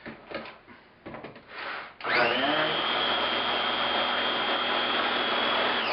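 A few light knocks, then about two seconds in a mini blender's motor whines up to speed and runs steadily, blending a scoop of powder into water, beginning to wind down right at the end.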